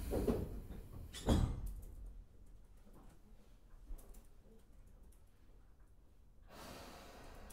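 Sliding doors of a Tobu commuter train, heard from inside the car, thudding twice in the first second and a half. The standing car then goes quiet with faint clicks, and a hiss rises near the end.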